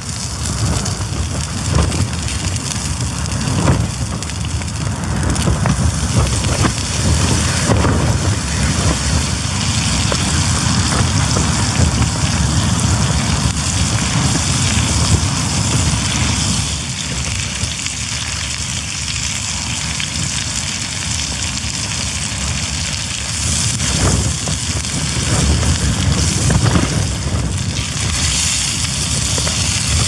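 Storm wind gusting and buffeting a tent, with rain on the fabric, easing for a few seconds past the middle. Under it a salmon fillet and tenderstem broccoli sizzle in a frying pan on a gas canister stove, with a few clicks of a utensil against the pan.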